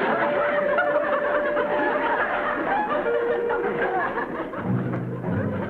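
Audience laughter over background music with held notes; a low, pitched sound comes in near the end.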